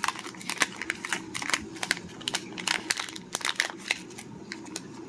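Plastic packaging crinkling and clicking as it is handled, in quick irregular crackles that thin out near the end, over a faint steady hum.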